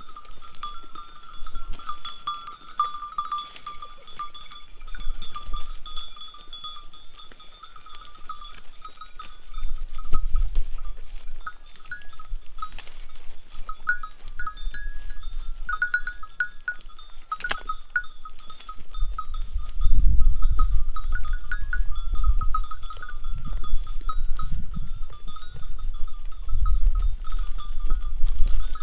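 Bells on a grazing herd of sheep and goats clinking and ringing without a break, several bells overlapping. A low rumble comes in underneath about ten seconds in and is stronger in the second half.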